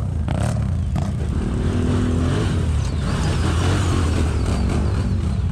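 ATV engine running hard under throttle on a hill climb, a steady loud engine note.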